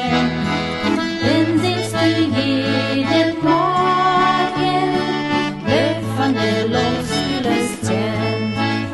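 A hymn tune played on accordion: a slow melody over held chords and sustained bass notes.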